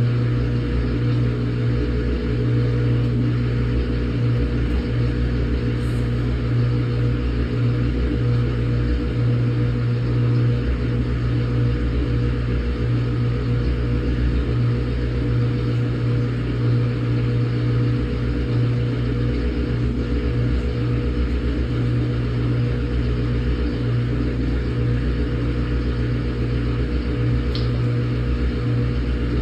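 Samsung top-load washing machine running a quick wash cycle: a loud, steady motor hum with a few constant tones, the title calls it loud. One faint tick near the end.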